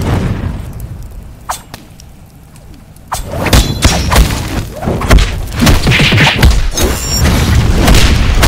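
Cartoon fight sound effects: a heavy boom at the start that dies away, then from about three seconds in a dense, loud flurry of hits and blasts.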